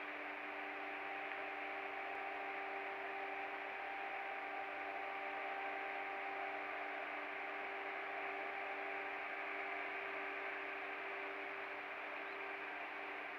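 Steady background hiss with a constant low hum and a faint higher tone, unchanging and with no distinct events, as picked up by a trail camera's microphone.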